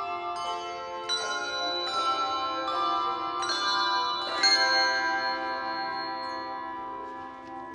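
Handbell choir ringing brass handbells in chords, a new chord struck about every second, then a last chord left to ring out and fade.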